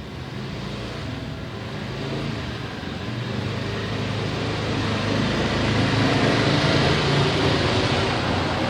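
A road vehicle's engine, growing steadily louder over several seconds as it approaches, loudest near the end.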